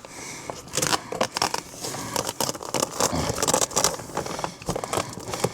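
Hook-and-loop Velcro fastener being pulled and pressed against itself, with a dense crackling and scraping as the hooks tear and grab.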